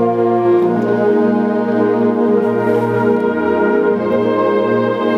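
Symphonic concert band of winds, brass and percussion playing a sustained, full chordal passage, with the notes shifting every second or so.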